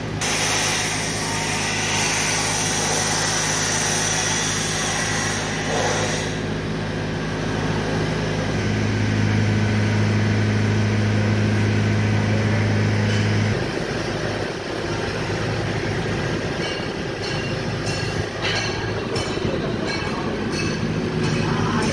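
Ashok Leyland 20 kVA diesel generator set running at a steady speed: an even low engine hum, loudest for about five seconds in the middle, with a few light clicks near the end.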